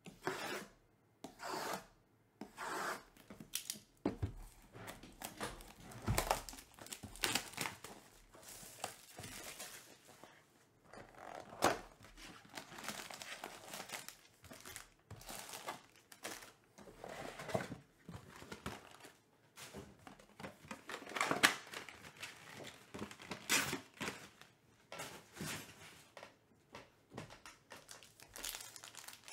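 Cardboard trading-card boxes being opened by hand and foil card packs being lifted out and stacked: irregular tearing, rustling and crinkling of foil and packaging, with the loudest crackle about two-thirds of the way through.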